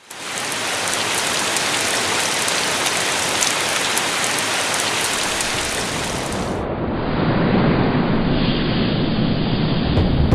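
Steady rain falling on a pond, a dense even hiss. About two-thirds of the way through it turns duller and deeper, with more low rumble.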